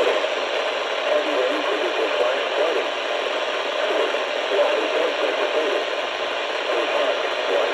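Radio static from a receiver on a weak signal: a steady, grainy hiss with poor reception.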